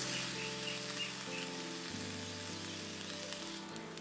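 Soft background music of held chords that change every second or so, over a faint steady sizzling hiss.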